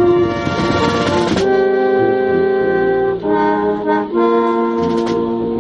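Military brass band playing slow, held chords that change every second or so, with percussion under the first second and a half.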